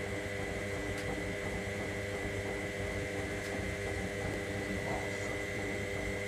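Electra AWF683 front-loading washing machine running steadily, a constant motor whine and hum over a soft whoosh.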